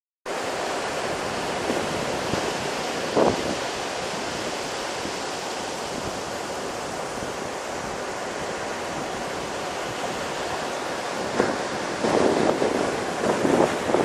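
Surf of the Cantabrian Sea breaking and washing up a flat sandy beach, a steady rush of waves. Wind buffets the microphone briefly about three seconds in and again near the end.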